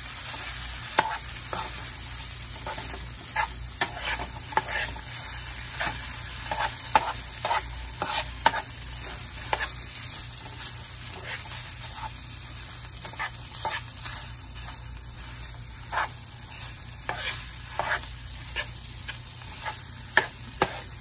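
Ground beef sizzling in a nonstick frying pan as a metal spoon stirs it, with irregular scrapes and clicks of the spoon against the pan over a steady sizzle.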